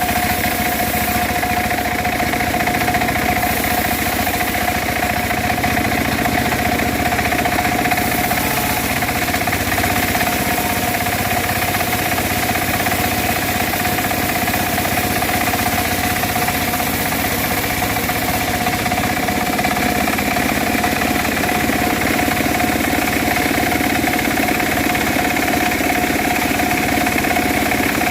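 Engine-driven home-built bandsaw sawmill running steadily, the engine note even throughout with a constant whine over it.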